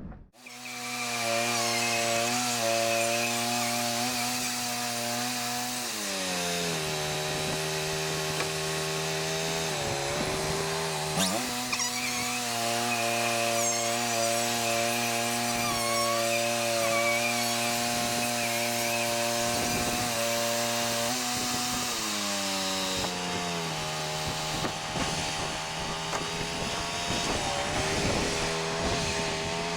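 Wood-Mizer LT40 Wide band sawmill running and cutting through a hard pecan log. The engine note sags about six seconds in and again past twenty seconds as the blade takes load in the dense wood, and picks back up in between.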